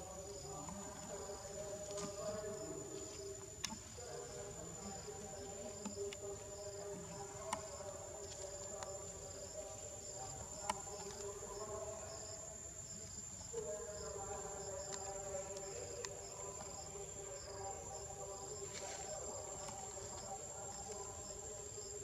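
Forest insects calling: a steady high whine and a regular pulsing chirp, typical of crickets and cicadas. Under them runs a steady low drone, and a few sharp clicks stand out.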